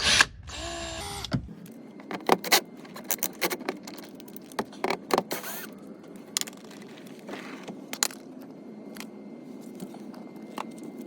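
A handheld power driver whirs briefly near the start as bolts are taken out of the bumper fixings. Then come a run of sharp metallic clicks and clinks from bolts and tools being handled, thick at first and sparser later.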